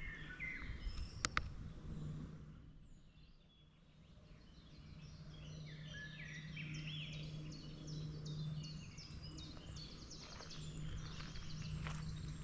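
Forest birdsong: a dense run of quick, high chirping notes that builds about five seconds in and fades near the end, with a few sharp footfalls on the trail at the start and near the end. A steady low hum sits underneath throughout.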